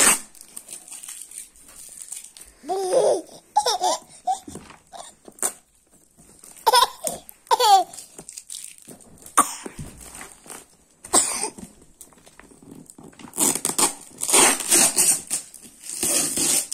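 Plastic wrapping of a parcel rustling and crinkling as it is handled, loudest in a long stretch near the end, with a few short bursts of laughter in the first half.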